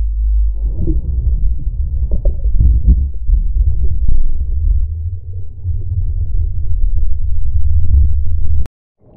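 Turbulent whitewater churning over a waterproof action-camera housing after a wave breaks on it. It is heard as a muffled low rumble with crackling bubbles and cuts off suddenly near the end.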